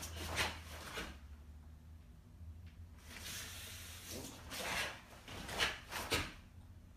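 Karate gi fabric swishing and snapping and bare feet on foam mats as a karateka turns and blocks through kata movements. There are a few short sharp snaps, the strongest near the end, over a faint low room hum.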